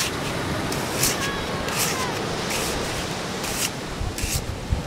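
Plastic toy shovel scraping sand off a packed sand castle, about five short scrapes roughly a second apart, over a steady wash of surf.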